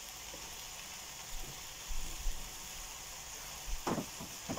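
Food sizzling steadily in a hot cast iron pan, a faint even hiss, with a few soft knocks and clatters from about a second and a half in.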